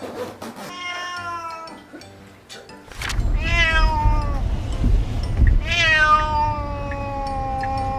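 A cat shut in a pet carrier protesting with long meows that fall in pitch: a shorter one about a second in, another a few seconds later, then a long drawn-out one of over two seconds. From about three seconds in, a car cabin's low rumble runs underneath.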